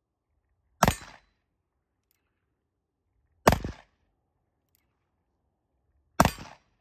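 An 1851 Colt Navy .36-calibre black-powder cap-and-ball revolver fired three times, shots about two and a half seconds apart. Each shot is a sharp crack with a short echoing tail.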